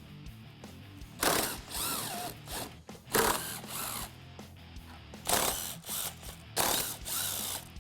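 A 3/8-inch ratchet with a T40 Torx bit clicking as bolts are turned out, in four short runs of about a second each, with faint background music underneath.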